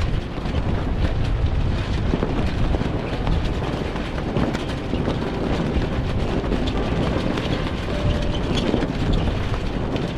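Wind buffeting the microphone on a sailboat at sea: a loud, steady rushing rumble, heaviest in the low end.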